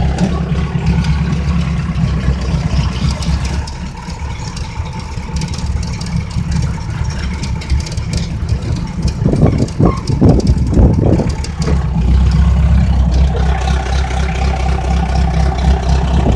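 Old Mahindra jeep's engine running with a steady low drone. A voice breaks in briefly about ten seconds in.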